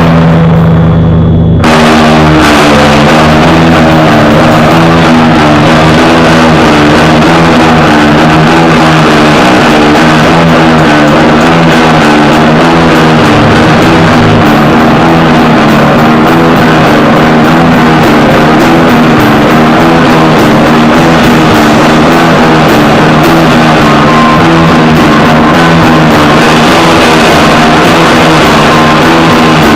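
Loud rock band playing guitars and drum kit. A held note opens, then the full band comes in about two seconds in and plays on densely.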